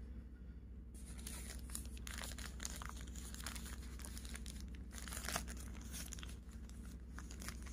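Thin plastic packaging bags crinkling and rustling as they are picked up and handled, beginning about a second in, over a steady low hum.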